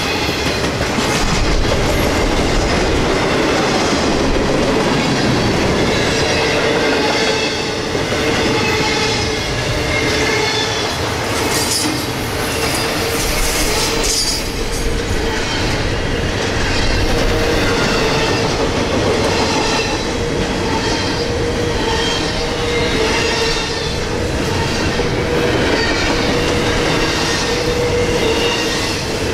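Freight train's intermodal cars rolling past close by: a steady rumble of steel wheels on rail. From about six seconds in, a steady whining tone runs through it.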